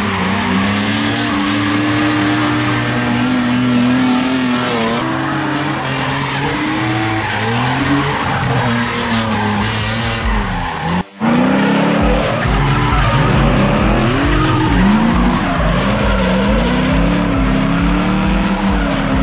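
Drift car engines revving up and down with tyres squealing through slides. The sound drops out for a moment about halfway through, then carries on.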